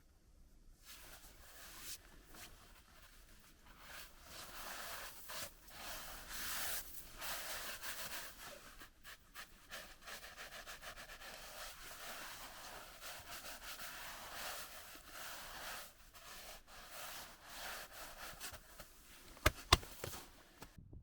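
Irregular rubbing and rustling from a hiker on the move, clothing and gear brushing the microphone, with two sharp knocks close together near the end.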